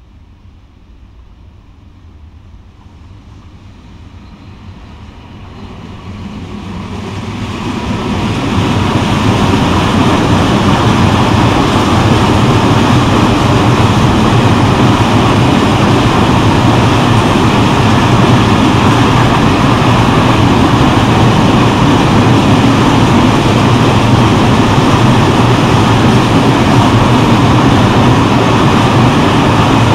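Freight train of grain hopper wagons approaching and passing: the rumble builds over the first several seconds, then a steady loud rumble and clatter of wagon wheels on the rails.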